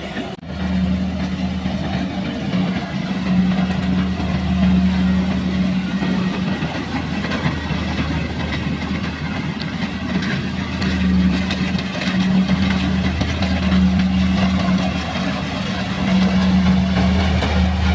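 Kubota combine harvester running steadily, its engine giving a low, even drone over a hiss of machine noise, with a brief dropout about half a second in.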